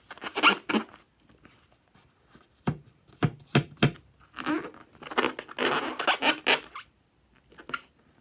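Hands squeezing and rubbing a large filled latex balloon: irregular bursts of rubbery rustling and squeaks, with several short sharp sounds around three seconds in.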